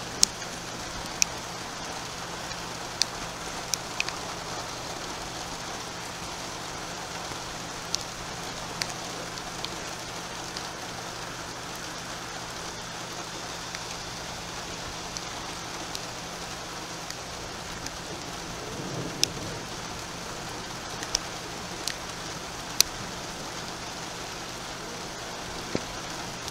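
Steady rain falling, with sharp drops striking something close by every few seconds.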